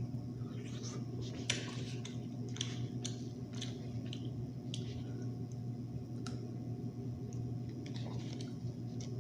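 Hands picking and cracking sauce-coated seafood claws and shells: scattered small shell clicks and crackles with wet squishing, over a steady low hum.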